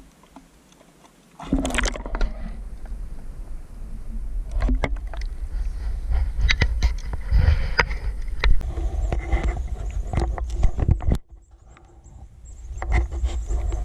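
Muffled quiet from a camera at the waterline, then from about a second and a half in, water sloshing and splashing around a kayak with scattered knocks and a low rumble of wind on the microphone. The sound drops away briefly about eleven seconds in, then builds again.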